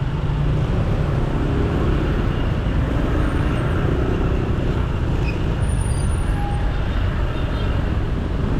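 Road traffic heard from a motorcycle riding slowly through a traffic jam: a steady low rumble of engines and road noise.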